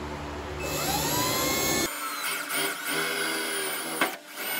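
Cordless drill drilling a pin-alignment hole through a trunk lid hinge. The motor whine rises as it spins up about half a second in, wavers in pitch with the trigger and the load, and stops briefly about four seconds in before starting again.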